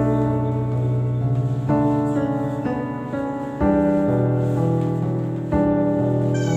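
Background piano music: slow, sustained chords, a new chord struck about every two seconds.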